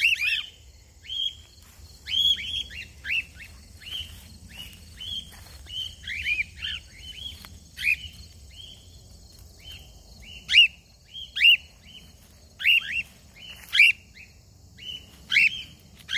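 Cockatiels making repeated contact calls: short whistled notes, many falling in pitch, about one or two a second. From about ten seconds in the calls come louder and more spaced.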